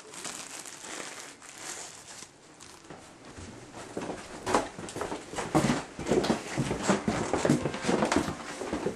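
Soft rustling and handling noise, then footsteps on a wooden floor, about two a second, starting about four seconds in.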